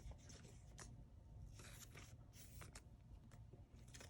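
Faint handling of trading cards: short scratchy slides of card against card and a few light clicks.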